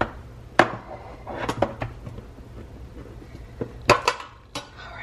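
Knocks and clatter of a Garbage Pail Kids collector's box being handled and its lid worked open. A few sharp knocks come in the first two seconds, then a quick cluster near the end.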